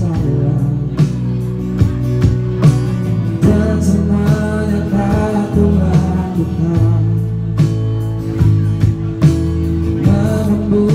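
A live band playing a song: guitar and bass with singing, and percussion struck with drumsticks, its strikes coming often throughout.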